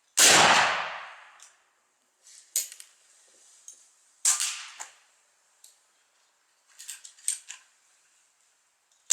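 Black-powder Remington New Army .44 cap-and-ball revolver, loaded with 1.2 g of black powder, fires once just after the start: a loud, deep boom with a long echoing tail of over a second. Quieter, sharper gunshots follow about two and a half and four seconds in, with a few small cracks near seven seconds.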